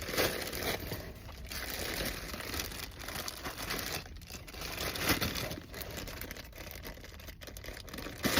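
Packaging being torn open and crinkled by hand, an irregular crackling rustle that keeps going throughout.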